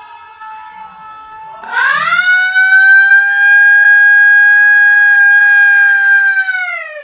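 A loud siren wail: one pitched tone that sweeps sharply upward about two seconds in, holds steady for several seconds, then drops in pitch and cuts off near the end.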